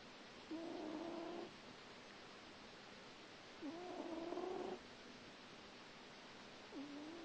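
Small grey cat snoring in its sleep: three pitched snores, each about a second long and about three seconds apart, each starting with a short upward slide and then holding a steady tone.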